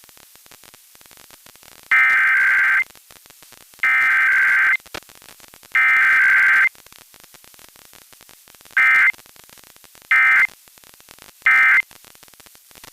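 Emergency Alert System SAME digital data tones, broadcast over radio. There are three long screechy data bursts about a second apart, carrying the alert header. After a pause come three short bursts, the end-of-message code. No attention tone or voice message comes between them, the usual form of an EAS required weekly test.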